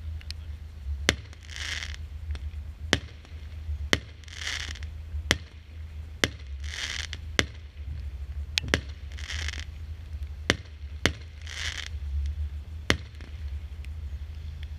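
Consumer firework battery firing shot after shot: a hissing whoosh about every two and a half seconds, with sharp cracks about once a second in between.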